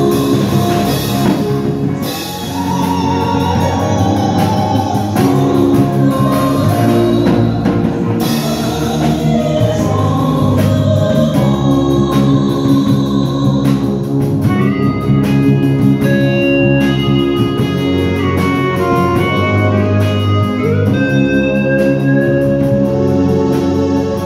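Women singing a song into microphones over band accompaniment with drums. Near the end the singing gives way to an instrumental passage.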